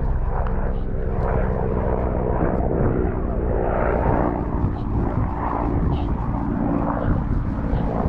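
A steady engine drone, with a change in its pitch pattern about two and a half seconds in, under irregular noise.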